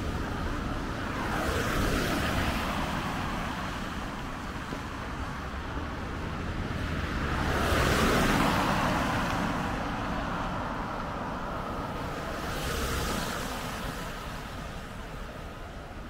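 Cars passing one at a time on a wet, slushy road: tyre and engine noise swells and fades three times, the loudest pass about halfway through.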